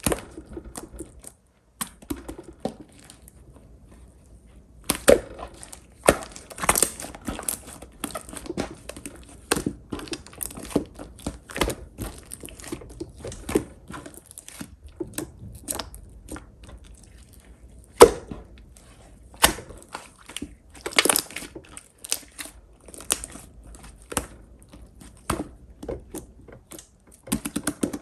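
Clear slime being squished and pressed by hand, giving irregular clicks and crackly pops.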